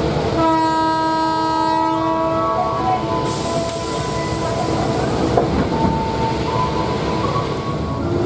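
A train horn sounds for about two seconds, heard from inside a passenger carriage, followed about a second later by a sharp hiss of air lasting about two seconds. Under both runs a low rumble as the train starts to pull out of the station.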